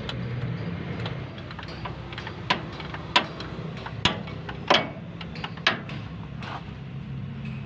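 Sharp metallic clicks and clinks of a wrench and hands working a bolt under a jeep while its starter is being removed, about six irregularly spaced strikes over a few seconds, over a steady low hum.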